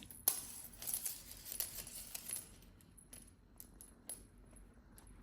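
Cat teaser wand toy jingling and clicking as a kitten plays with it: a busy run of quick, light jingles for the first two and a half seconds or so, then a few scattered single clicks.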